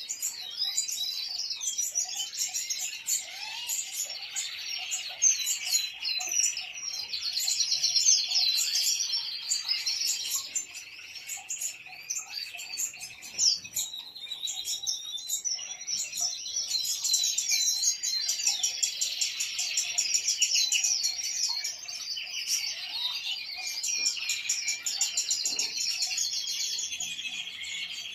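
Several European goldfinches singing together: a continuous, overlapping twittering of chirps and fast trills.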